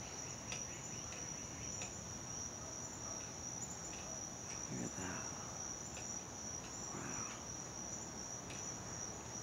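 Steady, high-pitched insect chorus: a continuous, unbroken trill of insects such as crickets.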